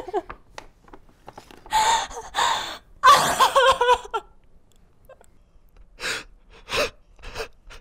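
A man gasping and sobbing, overcome with emotion: two breathy gasps, a wavering high-pitched cry about three seconds in, then three short sobbing breaths near the end.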